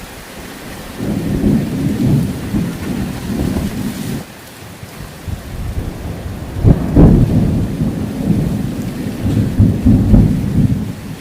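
Thunder rolling over steady heavy rain: a low rumble starts about a second in and fades, then a louder, sharper clap about seven seconds in rumbles on almost to the end.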